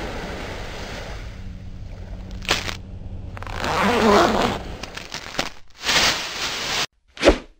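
A jacket zipper being pulled down for about a second, over a steady hiss. Short swishing bursts follow near the end.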